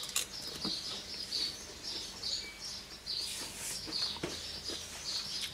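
Small birds chirping over and over, short high chirps a few times a second, with a light knock or two.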